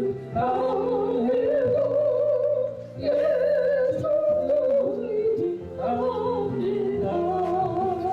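A solo voice singing a Korean gospel song with strong vibrato, in phrases that break briefly about a third of a second and three seconds in, over a steady backing track with sustained bass notes.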